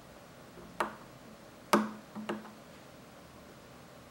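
Three short, sharp clicks of a cracked plastic pickup bobbin being handled on the coil-winding machine's spindle mount, the second the loudest.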